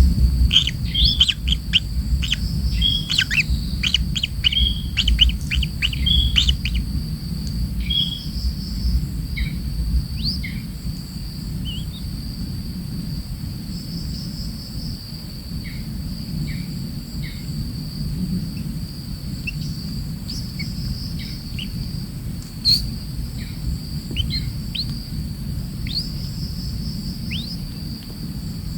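Birds chirping: a quick run of short, high calls in the first seven seconds, then scattered single chirps, over a steady high insect drone and a low rumble.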